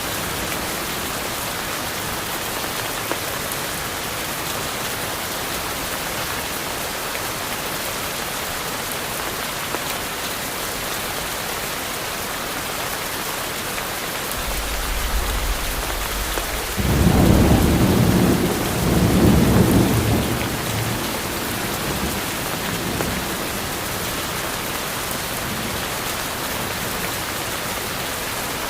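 Steady rain falling on a tropical forest, an even hiss throughout. About halfway through, a roll of thunder builds into a low rumble, loudest a few seconds later, then fades back into the rain.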